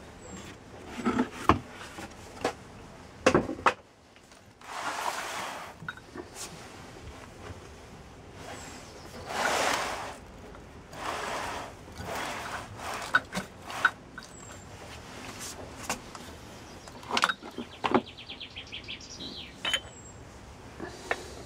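Hands opening a cardboard box and handling the metal pipes and resin-filled metal tins inside: scattered knocks and clinks, with several longer scraping rustles of cardboard and a quick rattle near the end.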